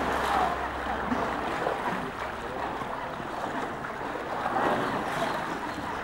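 Water splashing and sloshing as two young polar bears wrestle in a pool, loudest at the start and again a little before five seconds in.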